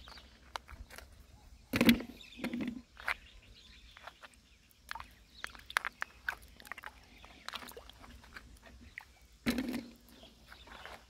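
Hand-fishing in shallow water and mud: scattered small clicks and knocks, with louder sloshing splashes twice, about two seconds in and again near the end.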